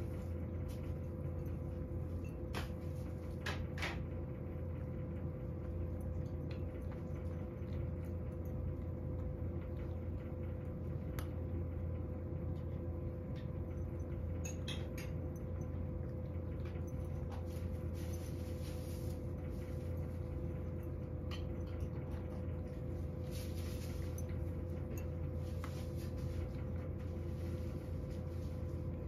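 A cat eating dry kibble from a ceramic bowl: scattered small clicks and crunches, heard over a steady low hum.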